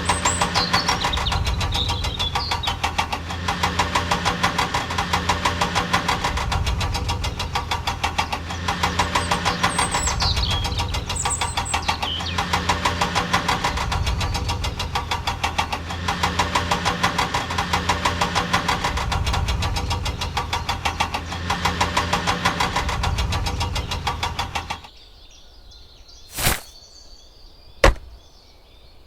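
An engine running with a fast, even chugging rhythm that stops abruptly about 25 seconds in, followed by a few sharp knocks.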